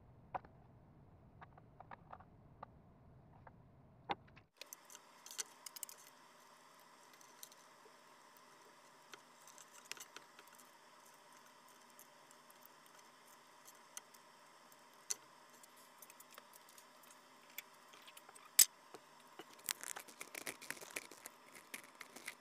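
Light metallic clicks and clinks of steel picture-hanging wire and wire strippers being handled on a wooden barrel head, scattered and irregular, with one sharp click about 18 seconds in and a quicker flurry of clinks near the end.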